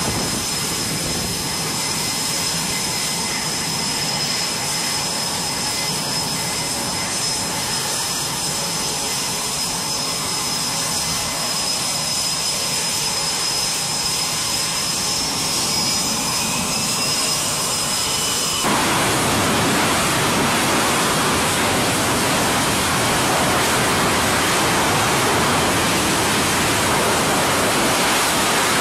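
F/A-18 Super Hornet jet engines running on a carrier flight deck: a steady high turbine whine over a rushing noise. The whine climbs in pitch about two-thirds of the way in, then the sound switches abruptly to a louder, even roar of jet exhaust at high power.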